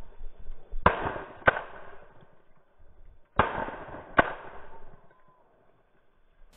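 Shotgun shots at a flushed pheasant: four sharp blasts in two quick pairs, each pair about two-thirds of a second apart, the second pair coming some two and a half seconds after the first, each with a short echoing tail.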